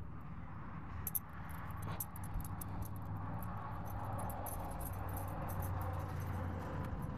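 Many light, rapid clicks and rattles over a steady low hum, starting about a second in.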